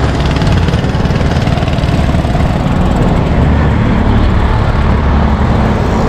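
Road traffic heard from a bicycle: motor vehicles running under a loud, steady low rumble.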